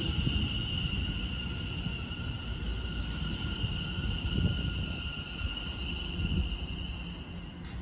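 Greater Anglia Class 720 electric multiple unit moving slowly along the platform. Its traction equipment gives a steady high whine in two tones over the low rumble of the wheels, and the whine fades a little near the end.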